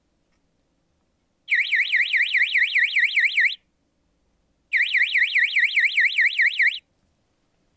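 Electronic alarm sounder of a signal indicator going off in two bursts of about two seconds each, a fast warble sweeping up and down about five times a second. It sounds because the thermal camera has detected a temperature alarm and forwarded it to the indicator.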